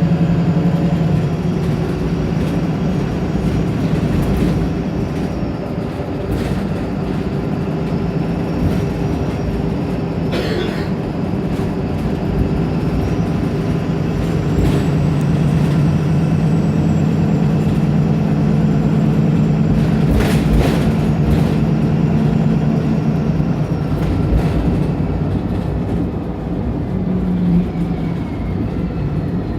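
The diesel engine of a Wright Pulsar single-decker bus heard from on board, working hard as the bus accelerates. Its note shifts a few times and runs strongest and highest about halfway through, with a brief hiss or rattle now and then.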